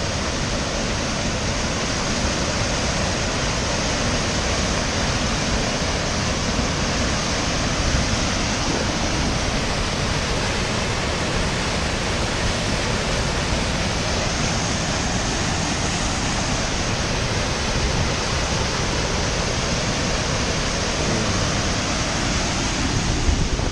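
Waterfall rushing steadily: the Devil's Kettle falls of the Brule River, one branch of the water pouring down into a rock hole. The sound is an even, unbroken roar.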